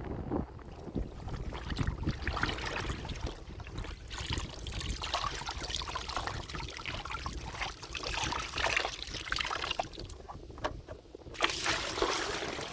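Water sloshing and trickling, in irregular splashes over a steady low rumble.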